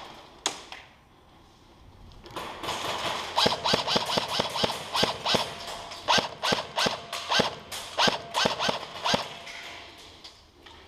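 Airsoft rifle firing a rapid string of single shots, about four a second, for around seven seconds.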